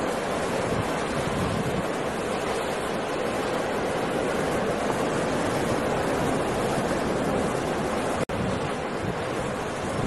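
Storm surf on a rough sea: heavy waves breaking continuously as a steady rushing noise, with a split-second dropout about eight seconds in.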